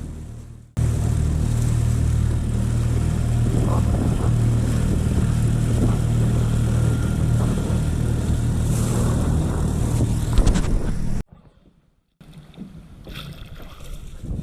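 Boat engine running steadily at a constant speed, cutting off abruptly about eleven seconds in; then fainter wind and water noise.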